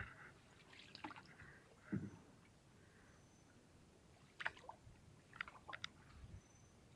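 Mostly near silence, with a few faint water splashes and drips from a paddled small wooden boat, scattered through and clustered near the end.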